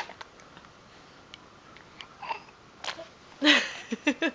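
A six-month-old baby's voice: a sudden breathy burst about three and a half seconds in, then a quick run of short staccato vocal sounds near the end.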